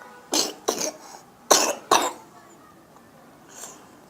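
A child coughing: four short coughs in two pairs, the second pair about a second after the first.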